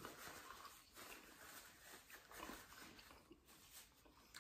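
Near silence with faint, scattered chewing and mouth sounds from eating a chicken wing.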